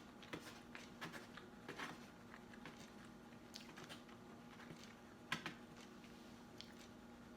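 Faint chewing and mouth sounds of someone eating, with scattered small clicks, the sharpest about five seconds in, over a faint steady hum.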